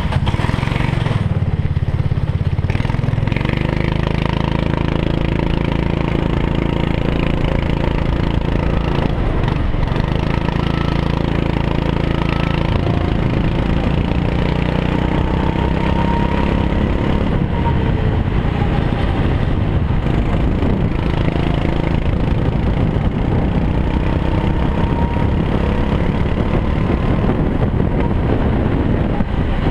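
Go-kart engine running under throttle, heard close up from the kart itself as it is driven around the track, its note rising and falling with speed.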